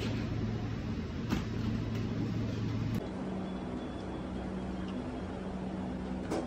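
Steady low mechanical hum of kitchen equipment, with a soft knock about a second in. The hum shifts to a different pitch about three seconds in.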